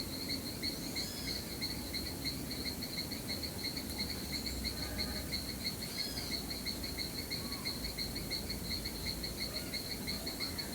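Crickets chirping in a steady, rapid, evenly pulsed high trill, with a few faint short bird chirps and a low rumbling noise underneath.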